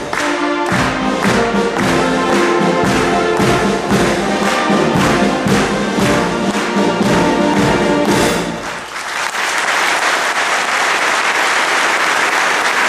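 Military band playing a march, brass over a steady drum beat, ending with a final chord about eight and a half seconds in. Audience applause follows.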